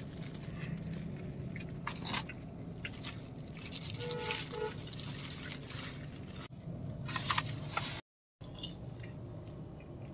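A man eating a burger: bites and chewing, with the paper wrapper rustling and crinkling in his hands, over a steady low hum in the car cabin.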